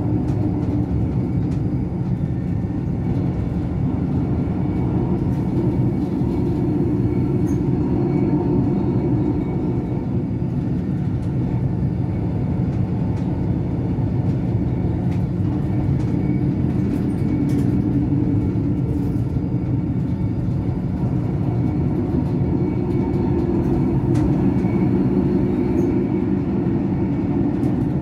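BLS RBDe 566 electric motor coach running along the line, heard inside the driver's cab: a steady rumble of wheels on rails with a little faint ticking.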